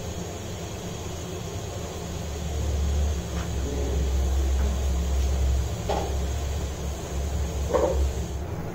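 A low, steady mechanical rumble that grows louder about two and a half seconds in, with two short faint sounds near the middle and near the end.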